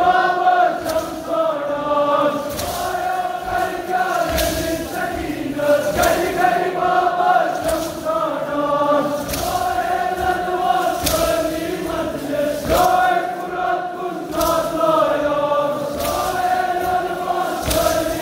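Large group of men chanting a Kashmiri nouha (Shia mourning lament) together in repeating sung phrases, with sharp beats about every second and a half.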